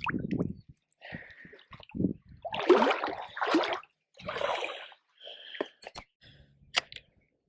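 A person breathing heavily in loud, gasping breaths, the strongest a little under halfway through, with some water splashing and two sharp clicks near the end.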